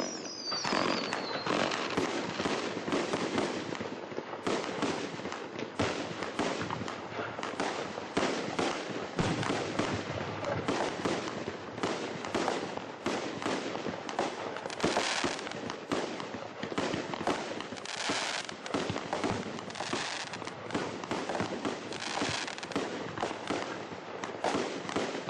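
SBB9082 'Megapolis Dubai' 49-shot firework battery (cake) firing continuous volleys: a dense, unbroken run of launch pops and shell bursts with crackling. There is a brief falling whistle at the start.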